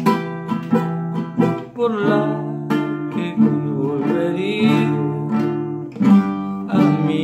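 Acoustic guitar played solo in an instrumental passage of a song, notes and chords plucked one after another and left ringing.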